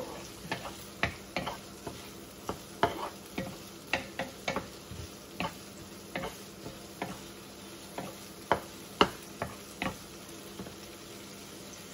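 Wooden spatula stirring sautéing tomatoes and onions in a nonstick frying pan, knocking and scraping against the pan in irregular taps about once or twice a second, over a faint steady sizzle from the pan.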